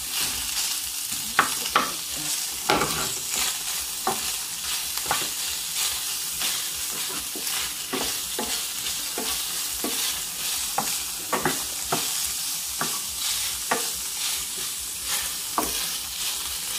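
Diced chicken breast and meat sizzling in a metal frying pan, stirred with a wooden spatula that scrapes and knocks against the pan every second or so over the steady hiss of the frying.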